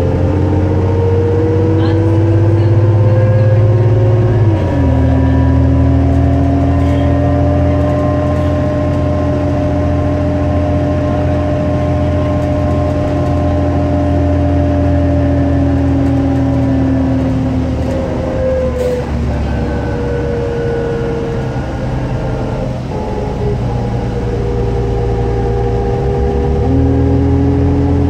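Interior sound of a 2005 New Flyer D40LF diesel transit bus under way: engine and driveline hum with a pitched whine. The pitch steps down about five seconds in, like an upshift, then holds steady for a long stretch before dipping again about two-thirds of the way through and changing once more near the end.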